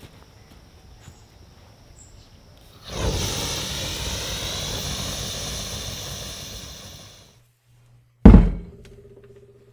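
A loud rushing whoosh of flame from the burning sword blade, starting about three seconds in and fading out after about four seconds. Near the end comes a single heavy thunk as a steel bar is set down on a wooden workbench, followed by a low steady hum.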